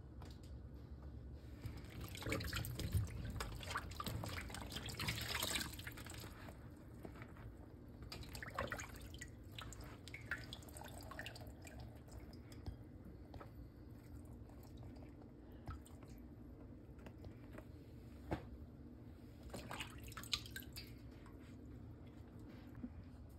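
Water dripping and splashing back into a bowl of soaking water as salted eggplant slices are squeezed out by hand. It is busiest about two to six seconds in, then turns to scattered drips.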